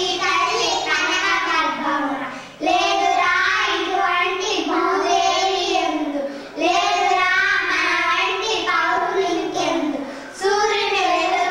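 Three young children singing a song together in unison, in phrases about four seconds long with short breaks for breath between them.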